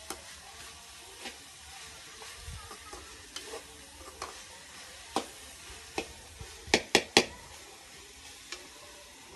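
Steel spoon scraping and clinking against a steel kadhai as food is stirred and roasted in oil to brown, over a faint steady sizzle. Three sharp clinks come close together about seven seconds in.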